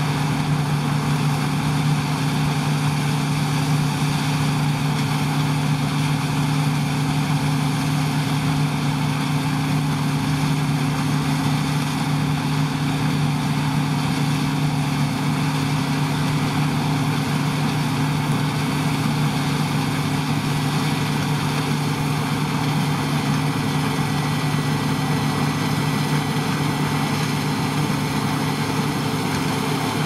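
New Holland CX8080 combine harvester running steadily while cutting spring barley: a constant engine and machinery drone with several steady tones over it.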